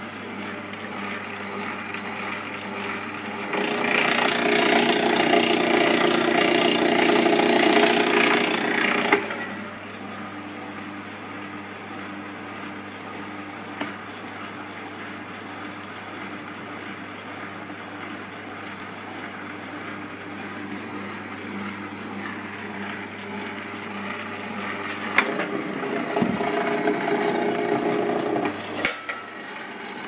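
Enerpat CWS40G cable stripping machine's 750 W single-phase motor and gear reducer running with a steady hum. Twice the sound gets much louder and noisier for several seconds, about four seconds in and again near the end, as a cable is drawn through the rollers and blade to slit its insulation; each pass ends with a sharp click.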